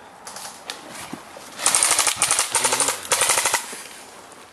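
Airsoft rifle firing three rapid full-auto bursts about a second and a half in, each a fast train of sharp clicks, after a few single shots.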